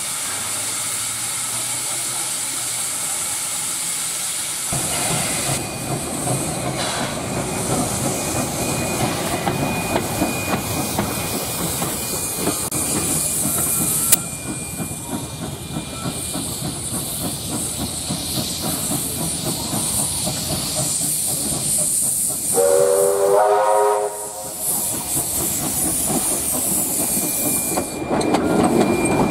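Steam hissing from the 1913 Hunslet-built NSW Z27 class tank locomotive 2705 as it stands. It then runs up with its train, and late on it gives one short blast of its steam whistle.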